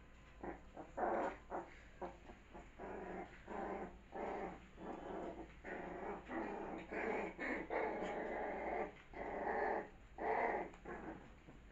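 Puppies growling as they play-fight, a rapid, irregular string of short growls with some longer ones.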